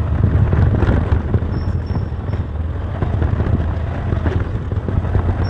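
Scooter riding along a road: its motor and tyre noise under heavy wind buffeting on the camera microphone.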